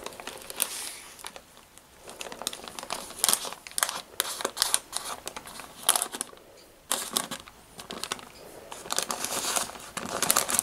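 Baking paper crinkling and rustling in irregular bursts as it is rolled and pressed by hand around a bacon roll, with a short lull about two-thirds of the way through.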